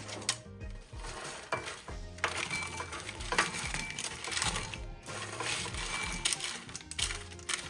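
Hardened candied pecans clattering and clinking into a ceramic bowl as a silicone spatula scrapes them off a parchment-lined baking sheet, over background music.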